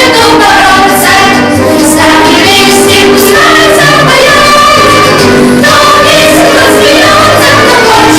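Vocal ensemble singing a lively song in chorus, with instrumental accompaniment underneath.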